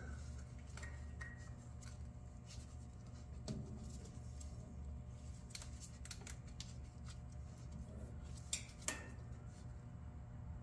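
Faint clicks and rubbing of gloved hands working on an overtightened spin-on oil filter and filter wrench, with a few sharper clicks about three and a half seconds in and twice near nine seconds, over a steady low hum.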